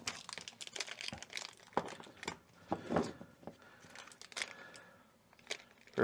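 Packaging being handled and unwrapped by hand: irregular crinkling and crackling, with some tearing.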